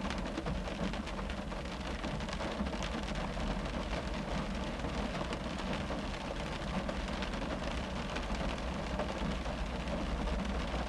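Rain drumming on a car's roof and windows, heard from inside the cabin: a dense, steady patter of many small drop hits over a low, muffled rumble.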